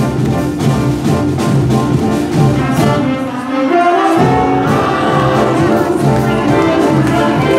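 Live band playing with a trumpet leading over drums and rhythm section; about halfway through, women's voices come in singing together over the band.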